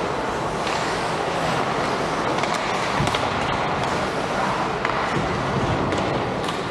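Ice hockey play: skate blades scraping and carving across the ice in a steady hiss, with a few sharp clacks.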